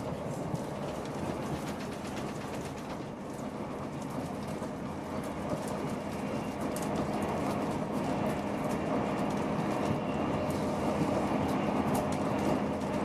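Cabin sound inside a Class 158 diesel multiple unit running at speed: a steady low drone under wheel and rail noise, with scattered light clicks, growing a little louder over the second half.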